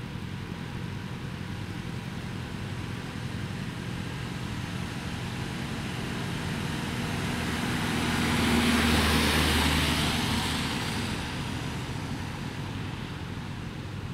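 Fire service van driving past, its engine and tyre hiss on the wet road building to a peak about halfway through as it passes close, then fading as it moves away; no siren sounds.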